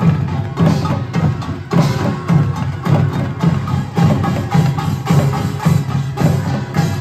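Parade music: drums and wooden percussion beat steadily, about two strokes a second, over a held melody.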